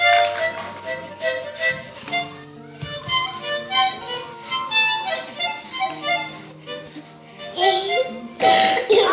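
A harmonica played by a child, blown and drawn in short, stop-start chords of several notes at once.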